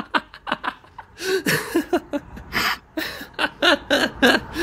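A man laughing hard in a string of short breathy bursts and giggles.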